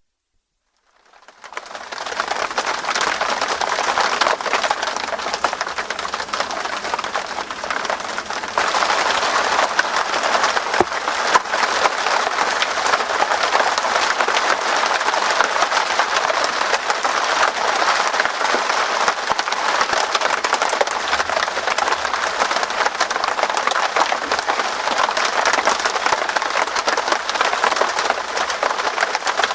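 Rain pattering steadily on tent fabric, a dense hiss of countless small drops that fades in over the first couple of seconds and grows a little heavier about eight seconds in.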